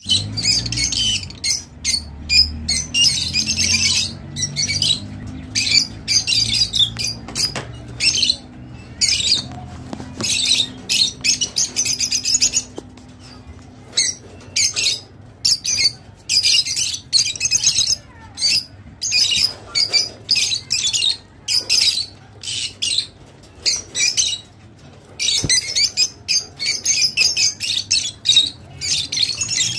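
Rosy-faced lovebirds chattering: several birds giving shrill squawks and chirps in rapid, irregular bursts with short pauses between.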